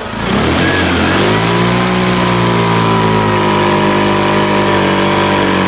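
TVS Jupiter BS6 scooter's fuel-injected single-cylinder engine revved on the stand. The pitch climbs over the first second or so, then hangs at one steady level. This is the fault being shown: under full throttle the engine chokes and will not rev freely, so the scooter won't go past 40 km/h.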